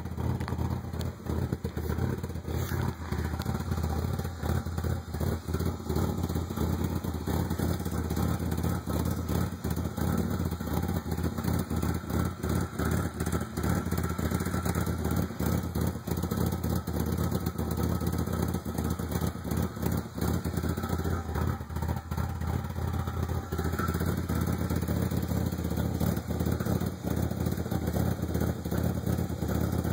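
1995 Ford Probe GT's 2.5-litre V6 idling roughly. Its steady drone is broken by frequent, irregular stumbles. This is a rough idle that set in after emissions-system, exhaust-manifold and rear-exhaust work.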